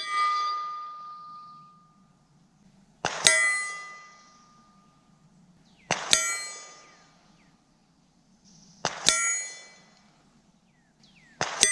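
A hanging 16-inch steel gong struck five times by .22LR bullets, about three seconds apart. Each hit is a short sharp tick followed a moment later by a loud metallic clang whose ringing fades out over a second or so.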